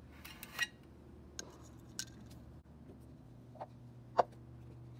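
Light clicks and clinks of small metal parts being handled, about five in all, with the sharpest a little after four seconds in.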